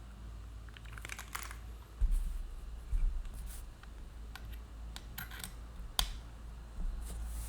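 Typing on a Neo60 Core 60% keyboard with Krytox 205g0-lubed BBN Tactile switches on a polypropylene plate with case foam: irregular keystroke clicks in small clusters, with a couple of heavier, deeper hits about two and three seconds in.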